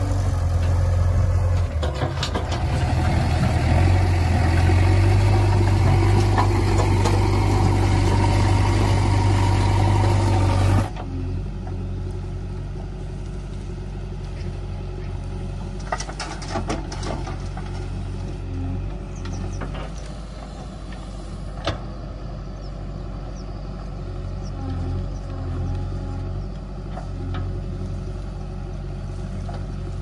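JCB 3DX backhoe loader's diesel engine running steadily under load as its front bucket shoves soil. About 11 seconds in the sound cuts to a quieter diesel drone as the backhoe digs and tips soil into a tractor trolley, with a few sharp knocks.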